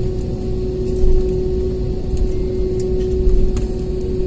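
Airbus A320-family airliner rolling along the runway just after touchdown, its ground spoilers up, heard inside the cabin: a low rumble from the wheels and engines with a steady hum on one pitch and a few faint ticks and rattles.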